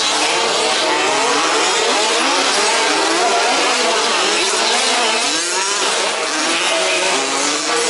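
Several 1/5-scale petrol RC off-road race cars with small two-stroke engines revving up and down together, their pitches rising, falling and overlapping.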